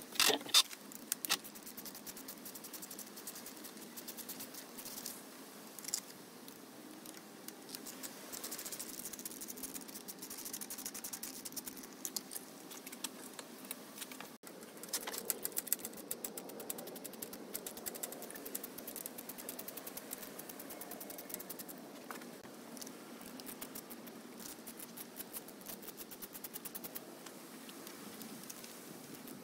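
Light clicks and rattles of hand tools and small metal parts as a motorcycle's handlebar wiring and controls are taken apart, with a few sharper clicks in the first second or so.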